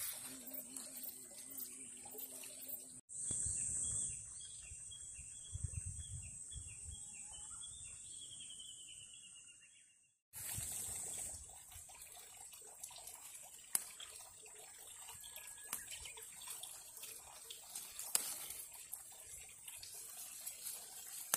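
Garden ambience: a steady high-pitched insect drone with light rustling and snapping of leaves and stems as tomatoes and basil are picked by hand. In the middle stretch the drone is louder and a rapid series of short chirps, about three a second, repeats.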